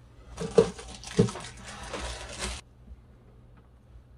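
Plastic packaging bag crinkling for about two seconds, with two sharp knocks near the start as hard pieces are set down on the bench. The sound stops a little past halfway.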